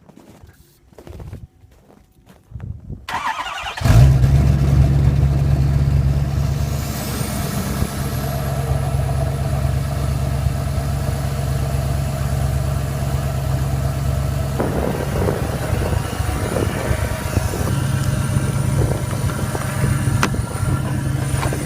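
Ford Power Stroke diesel engine cold-starting. It cranks for about a second, catches about four seconds in and settles into a loud, steady idle. A high whine rises a few seconds after it catches and then holds steady.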